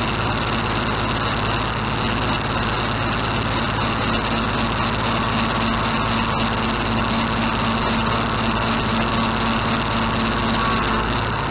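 An engine running steadily, with a low hum that grows a little stronger about halfway through.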